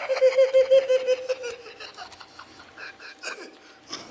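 A man laughing heartily in quick, evenly paced "ha-ha-ha" bursts for about a second and a half, then trailing off into softer laughter.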